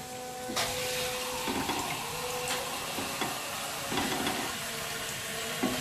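A wooden spoon stirring tom yum broth in a pot, the water just poured onto the fried paste, over a steady hiss, with a few soft knocks of the spoon against the pot.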